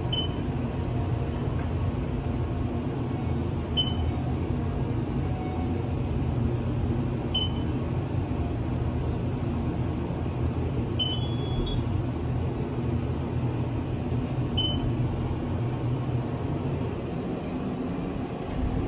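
Elevator car travelling upward: a steady low rumble of the car in motion, with a short high beep about every three and a half seconds, five in all, as it passes each floor.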